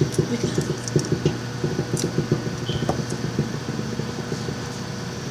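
Quick, irregular crackling and clicking of eggshell as a boiled egg is cracked and peeled by hand, busiest over the first three seconds and then thinning out, over a steady low hum.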